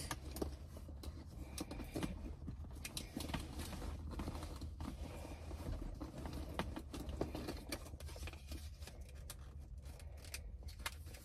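Small items and pouches being handled and packed into a handbag: irregular light clicks, taps and rustles over a low steady hum.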